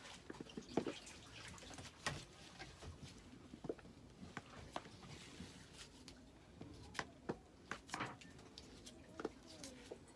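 Knife cutting tomatoes: irregular sharp taps and clicks of the blade, with soft squishing.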